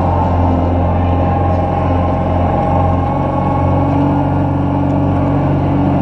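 Zamboni ice resurfacer's engine running steadily as the machine drives over the rink, a constant drone heard close up from on board.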